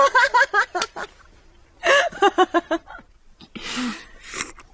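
A person laughing in two bursts, each a quick run of short ha-ha syllables, followed near the end by a breathy sigh.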